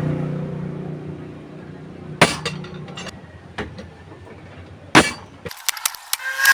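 Sharp metal knocks and clinks from tools striking a small sheet-metal burner while holes are made in it: four separate strikes, then a quick run of clinks near the end. Under the first strikes a low steady hum fades away and then stops abruptly.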